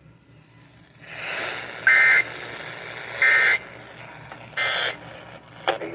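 Emergency Alert System end-of-message signal: three short buzzing bursts of SAME digital data tones, a little over a second apart, over a steady radio hiss. The bursts mark the end of the broadcast warning.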